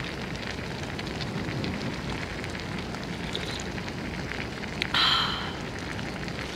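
Pasta frying in oil in a pan: a steady sizzle with fine crackles, and a brief louder hiss about five seconds in.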